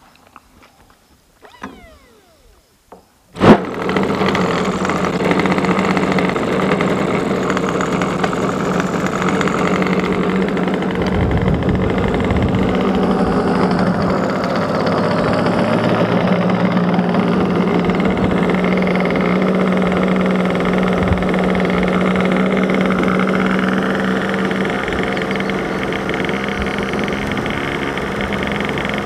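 RC plane's Evolution .36 two-stroke glow engine with an 11x4 propeller catching with a sharp burst about three and a half seconds in, after a few faint clicks. It then runs on steadily at a constant speed.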